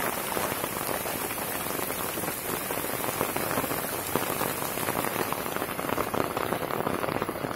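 Steady heavy rain falling on grass, trees and puddled ground: a dense, even patter of drops.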